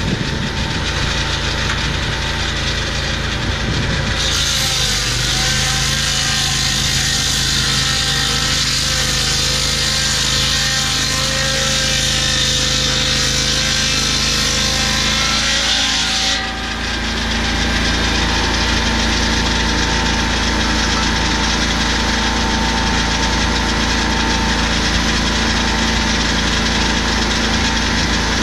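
Lucas portable swing-blade sawmill's petrol engine running steadily, with the circular blade cutting through a gum log from about four seconds in to about sixteen seconds in. The cut then ends suddenly and the engine runs on alone.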